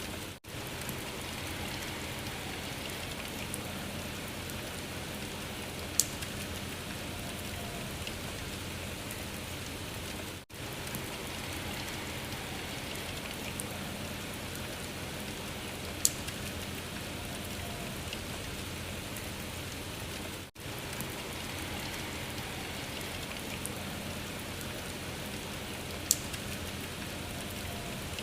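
Steady rain hiss from a recording that repeats about every ten seconds: the sound drops out for a moment at each join, three times, and a single sharp pop comes once per repeat, three times in all.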